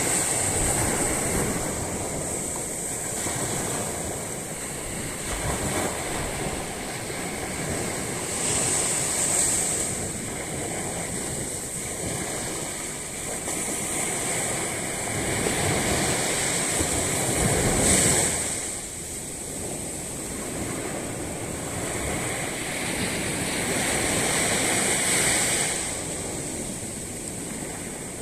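Sea waves breaking and washing up on a sandy beach, the surf swelling and easing every several seconds.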